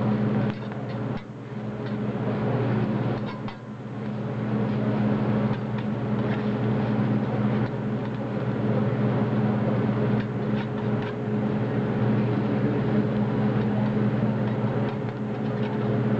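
Metal spatulas scraping, chopping and clicking against a steel teppanyaki griddle as fried rice is turned and sizzles, over a steady low hum from the exhaust hood.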